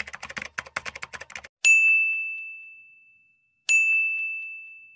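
Key-typing sound effect, a rapid run of clicks that stops about a second and a half in. Then two bright bell dings about two seconds apart, each ringing out and fading, like a notification-bell sound.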